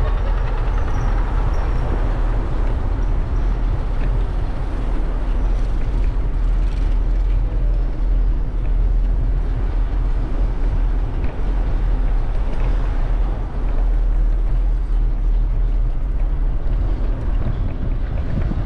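Steady city street noise heard from a moving bicycle: traffic with a constant deep rumble and no single event standing out.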